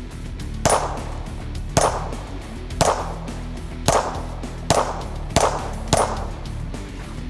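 Ruger Security 9 pistol firing 9mm rounds: seven shots, the first four about a second apart and the last three a little quicker.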